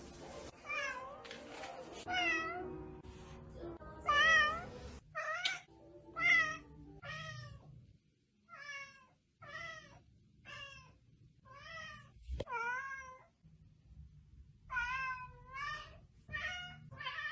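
A cat meowing over and over, about one meow a second. After a short break, a few longer, drawn-out meows follow near the end.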